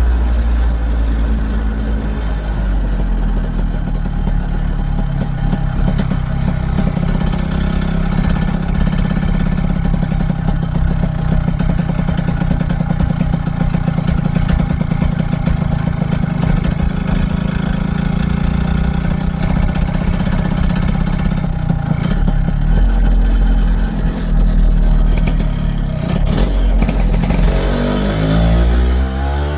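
1964 Lambretta Series 3 scooter's two-stroke single-cylinder engine running steadily under way, falling in pitch near the end as it slows.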